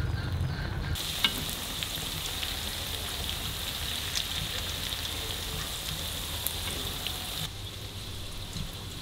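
Tofu cubes frying in hot oil in a wok, a steady sizzle with a few sharp pops and crackles. The sizzle grows fainter about a second before the end.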